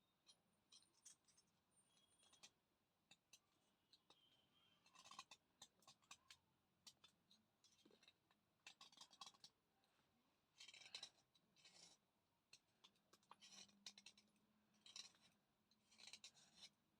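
Chandni thick slate pencil crunching between the teeth: dry, crisp crackles in short bursts of rapid clicks, one burst every second or two.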